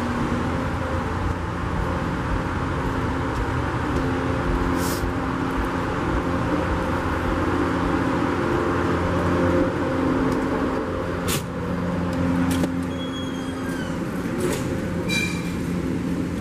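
Loud, steady mechanical drone and rumble of airport ramp machinery heard inside a jet bridge. In the second half come a few sharp clicks and knocks as a push-bar door is passed through.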